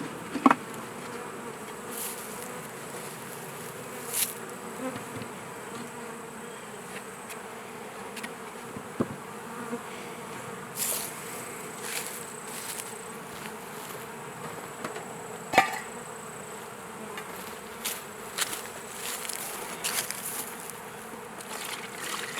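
Honeybee swarm buzzing steadily around an open hive, with a handful of sharp knocks and clicks from the hive equipment being handled.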